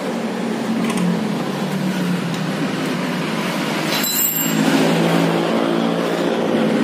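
A motor vehicle engine running steadily, with a short high-pitched clink about four seconds in.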